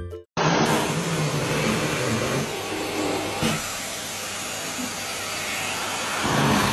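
Vacuum cleaner running steadily, its nozzle being drawn over a cat's fur. The noise starts suddenly a moment in and grows a little louder near the end.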